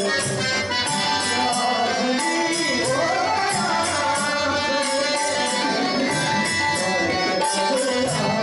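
Devotional bhajan music: a harmonium plays a sustained melody while small brass hand cymbals (tal) clash in a steady rhythm over a hand-drum beat, with a male voice singing in places.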